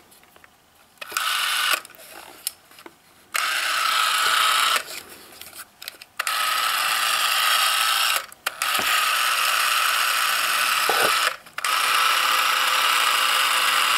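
Boots Comet 121 Super 8 movie camera (made by Bencini) running on its battery-powered DC micromotor at 18 frames per second: a steady mechanical whirr with a faint high whine. It starts and stops about five times with short pauses between, as the trigger is pressed and let go.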